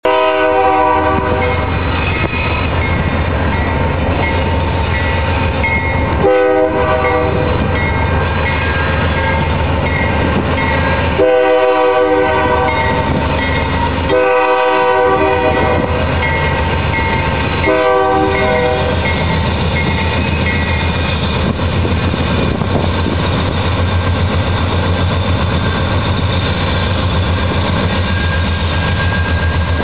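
Diesel locomotives hauling a BNSF double-stack freight train, sounding the multi-chime air horn in five blasts during the first twenty seconds over the steady low rumble of the engines and rolling train. A bell dings at an even pace until about twenty seconds in.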